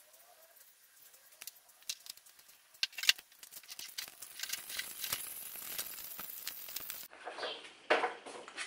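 Engine oil draining from the oil pan of a BMW M44 engine in a thin stream into a drain pan: faint, irregular pattering with a soft hiss that builds over the last few seconds. About seven seconds in, this gives way to a few louder knocks and rustles.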